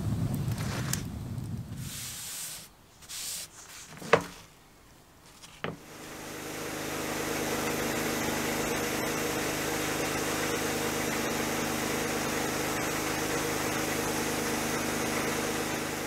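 Flames burning in an open fire pit with wind on the microphone for the first couple of seconds, then a few sharp clicks, the loudest about 4 s in. From about 6 s an abrasive blast cabinet's gun sandblasts a steel bar of a metal shear: a steady hiss of air and grit with a hum underneath, stripping rust and paint from the part.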